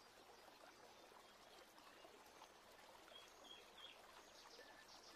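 Near silence: faint outdoor background hiss with a few faint short bird chirps, three in quick succession a little past the middle and more near the end.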